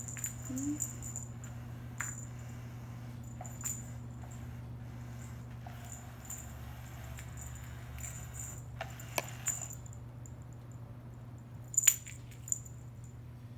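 Light metallic jingles and clicks scattered through, the loudest near the end, as kittens bat at a wand cat toy on the floor, over a steady low hum.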